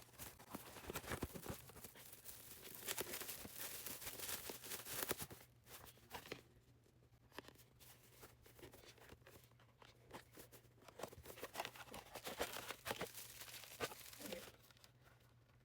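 Packaging being handled and torn open: irregular rustling, tearing and clicking, busiest in the first five seconds and again from about ten seconds in, over a faint steady low hum.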